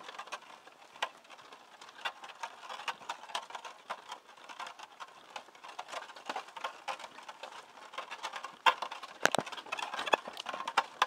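Wooden oxcart rolling along a dirt track, its frame and wheels giving a run of irregular clicks, creaks and knocks, with a louder burst of knocks about three-quarters of the way through.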